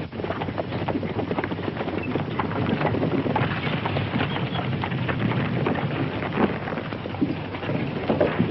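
Horses' hooves on a dirt street: a dense, irregular clatter from several horses over the hiss of an old film soundtrack.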